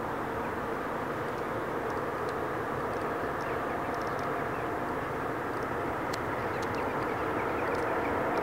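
Boeing 747-8F freighter on final approach, its four GEnx-2B turbofans heard as a steady rushing drone that grows slowly louder as the jet comes nearer.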